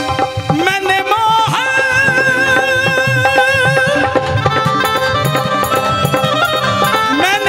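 Live Hindu devotional bhajan music: tabla-style hand drums keep a steady beat under a wavering melody line.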